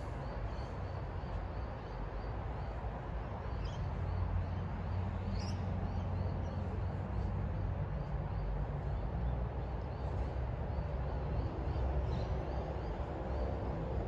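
Outdoor ambience of a low steady rumble with a few short bird chirps, over a faint high call that repeats about three times a second. Near the end a faint steady hum comes in.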